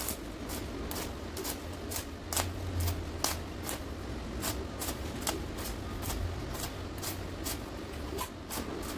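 Welding on thin tube: irregular sharp crackles, about two to four a second, over a low steady hum.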